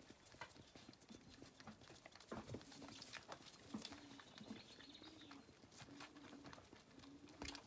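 Zwartbles lambs suckling milk bottles: faint rhythmic sucking, a short low tone recurring about once a second, with scattered light clicks.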